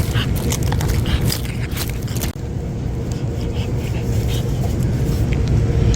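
Road traffic noise: a steady low rumble of passing vehicles, with scratchy crackles in the first two seconds and a brief break a little over two seconds in.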